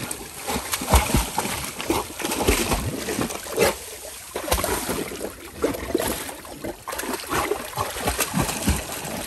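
A Labrador retriever swimming and paddling in a small concrete tank, its legs splashing and sloshing the water in irregular bursts, with a quieter spell about four seconds in.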